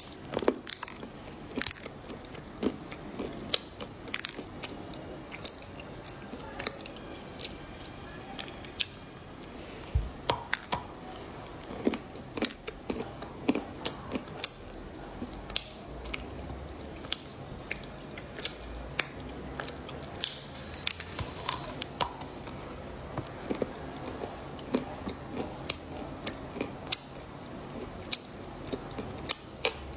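Close-up bites and chewing of hard, crunchy dark chocolate: many short, sharp, irregular crunches.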